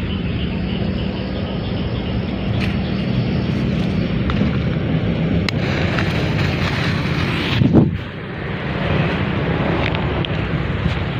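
A steady rumbling noise with scattered faint sharp pops of distant fireworks, and one louder bang about eight seconds in.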